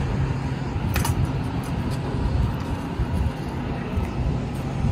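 A steady low engine hum over even background noise, with one sharp click about a second in.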